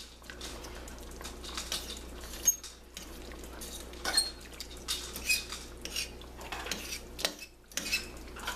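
A metal fork shredding cooked chicken in sauce inside a stainless steel pot: irregular scrapes and clinks of the fork against the pot, some with a brief high ringing ping.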